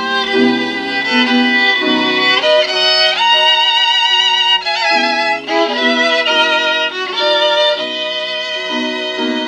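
Violin music played from CD through a 6BM8 (6F3P) ultralinear single-ended valve amplifier and bare Isophon oval loudspeakers: a violin melody with vibrato over lower accompanying notes.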